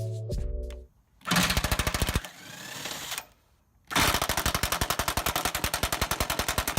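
Cordless impact wrench hammering on suspension cradle bolts in two bursts, a short one and then a longer run of several seconds, each a fast, even rattle of blows.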